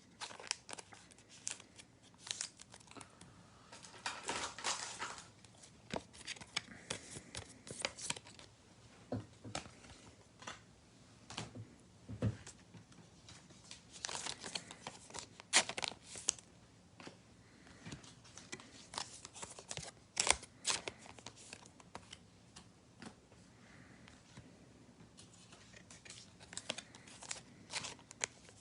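Trading card pack wrappers crinkling and tearing, with cards being handled: a run of short, irregular rustles with a few louder clusters.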